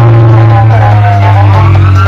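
Very loud electronic music blasting from a street DJ sound rig of stacked bass cabinets and horn loudspeakers. A deep, steady bass drone runs under a higher electronic tone that slides down in pitch and then climbs back up.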